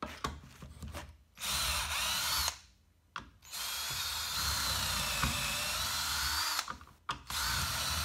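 Cordless drill boring pin holes through a drill jig into a timber beam, in three runs with short stops between them. In the longest run the motor's whine sags in pitch under load and then picks up again. A few light clicks come just before the first run.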